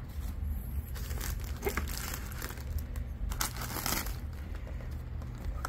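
Plastic air-cushion packing crinkling and rustling as a boxed model railway wagon is handled and pulled out of a cardboard shipping carton, with a few sharper crinkles partway through.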